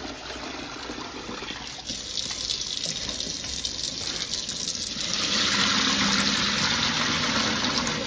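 Kitchen tap running into a plastic tub of wild bird seed being rinsed in a stainless steel sink. About five seconds in, a louder splashing gush as the tub is tipped and the rinse water is poured off into the sink.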